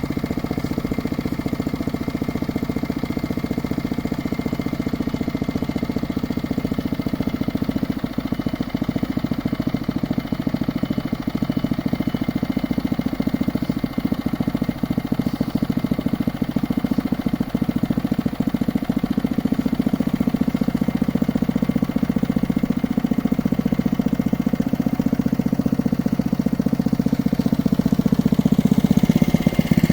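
Engine of a geological exploration drilling rig running steadily, getting a little louder near the end.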